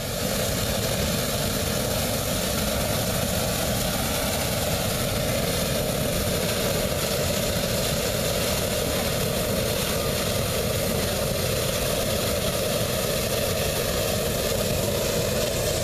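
Hot-air balloon's propane twin burner firing one long continuous blast into the envelope during hot inflation, a steady rushing roar that cuts in suddenly at the start.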